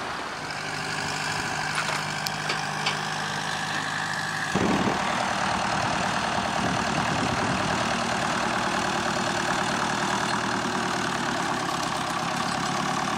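Vintage tractor engine running steadily at low revs. The sound changes abruptly about four and a half seconds in, and a louder engine takes over.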